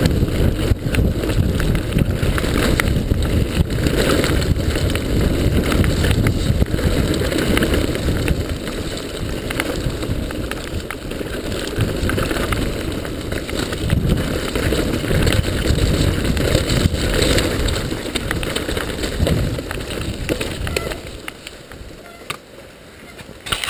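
Mountain bike descending a rough dirt and rock trail, heard from a camera mounted on the rider: steady wind buffeting and tyre rumble, with frequent rattles and knocks from the bike over roots and stones. It goes much quieter near the end as the bike slows.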